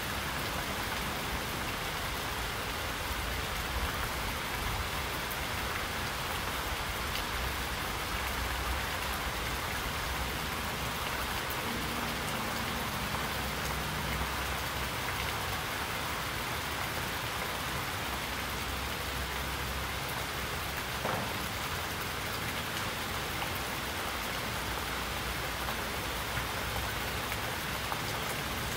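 Steady rain falling, an even hiss of many drops that keeps on without a break.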